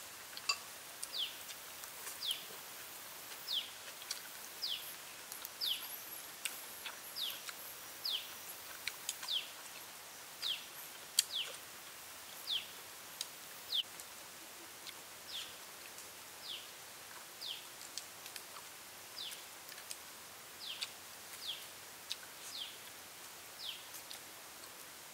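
A bird repeating a short, high, falling call about once a second, over a steady hiss of forest background, with a few faint clicks.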